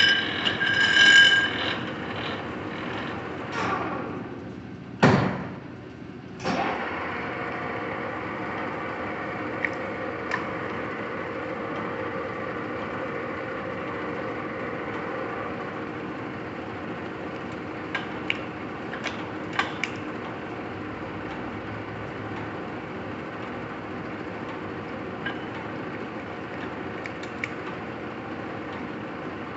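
A 1981 Lodge & Shipley Powerturn engine lathe's geared headstock and 20 hp drive running under power. A high whine stops about a second and a half in, and a clunk about five seconds in is followed by a brief drop in sound. Then a steady gear hum takes over, with a few light clicks.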